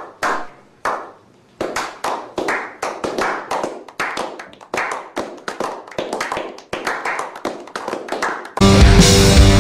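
A slow clap: a few single hand claps with gaps between them, picking up into steady clapping by a small group at about three claps a second. Loud rock music cuts in suddenly near the end.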